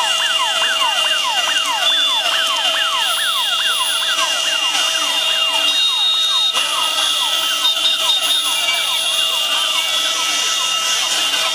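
Several electronic sirens sounding together: rapid, overlapping falling wails repeating several times a second, over a steady high whine.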